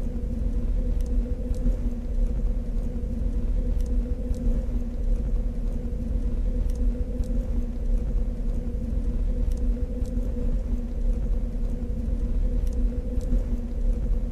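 Sound-design background ambience for a castle lair: a deep steady rumble under a constant two-note electrical hum, with faint scattered high clicks.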